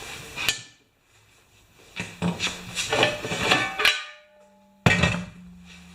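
Metal tools and parts clattering and knocking on a workbench, with short metallic ringing. The sound cuts off abruptly about four seconds in, and there is one sharp knock near the end.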